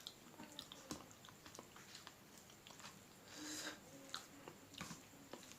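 Faint chewing and mouth sounds of a person eating, with scattered soft clicks and a brief soft swell of noise about three and a half seconds in.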